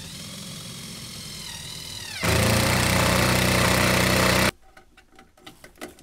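Cordless impact driver driving a screw into a wooden joist: a steady motor whine for about two seconds, then a much louder rattling hammer as the impact mechanism kicks in while the screw tightens, stopping suddenly about four and a half seconds in. A few faint clicks follow.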